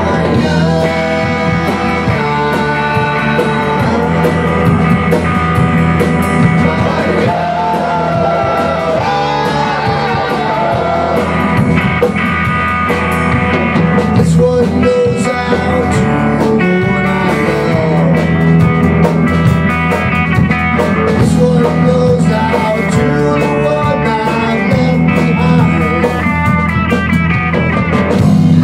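Rock band playing live: electric guitar, electric bass and drum kit together.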